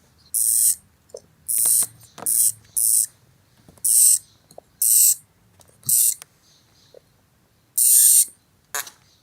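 Hamster giving short, harsh, hissy squeals, about nine in a row, roughly one a second.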